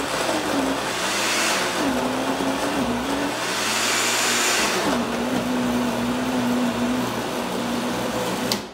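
Countertop blender running at high speed, puréeing onion, tomatoes, garlic, leek and peppers. Its loud motor tone wavers and dips a couple of times, then a click of the button near the end and the motor cuts off.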